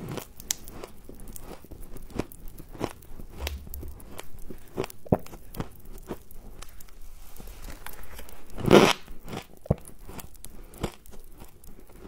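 Biting and chewing mouthfuls of crunchy freezer frost, a run of short crunches. One louder crunch comes a little before nine seconds in.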